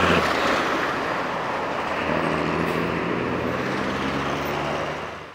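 Busy city street traffic: a steady wash of passing vehicles with the low hum of bus and truck engines running, fading out near the end.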